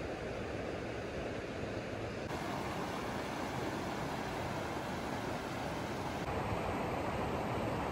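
Shallow rocky creek flowing over stones and small riffles: a steady rush of water. Its tone shifts abruptly about two seconds in and again about six seconds in.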